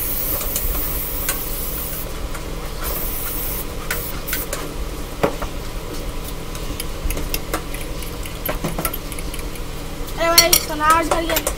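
Fork whisking beaten eggs in a glass bowl, its tines clicking against the glass again and again, over a steady sizzle of sausage frying in a pan. Two short hisses of aerosol cooking spray come near the start, about two seconds apart.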